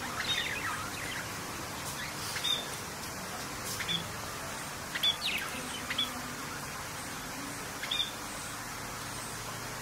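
Budgerigars chirping: short, high chirps every second or two over a steady background hiss.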